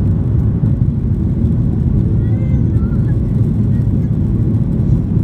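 Steady low rumble inside the cabin of a Boeing 737-800 climbing out: its CFM56 turbofan engines and the rush of air, heard from a window seat over the wing.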